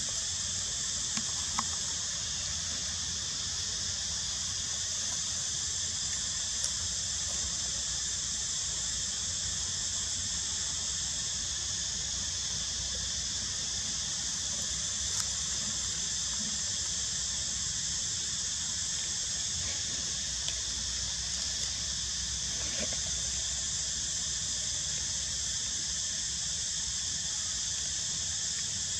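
Steady, high-pitched drone of an insect chorus in several unbroken bands, with a few faint ticks scattered through it.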